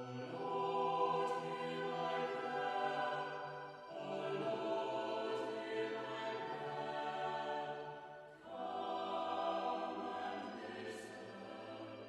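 Choral music: a choir singing slow, sustained phrases, three of them, each starting afresh about four seconds apart.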